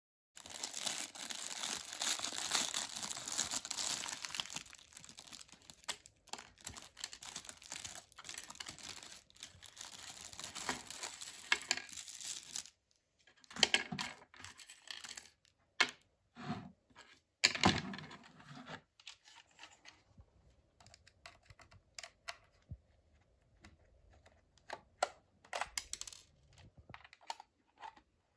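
Clear plastic packaging bags crinkling and rustling as they are handled. The rustling is continuous for about the first twelve seconds, then comes in short loud bursts with scattered clicks and knocks of hard plastic parts.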